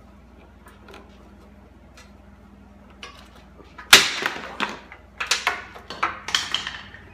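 Stiff plastic trim piece under a car's front end being forced loose by hand: a sharp knock about four seconds in, then a run of scraping and rattling plastic noises as it is worked free of its groove.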